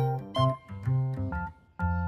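Background music: a light tune of short, separated pitched notes.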